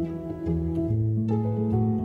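Background music with plucked string notes over sustained bass tones; the bass moves to a new note about a second in.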